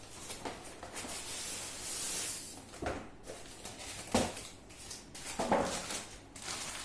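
Handling noise: rustling, then three sharp knocks about a second and a half apart, as a boxed pair of car coaxial speakers is handled.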